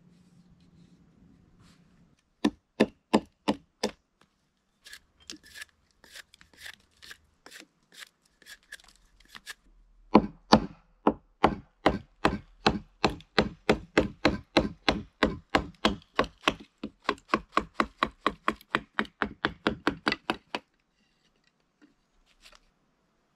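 Repeated chopping strikes on wood. A short quick run of loud blows comes first, then softer, irregular ones. After that a long, even run goes at about two and a half strikes a second and stops abruptly.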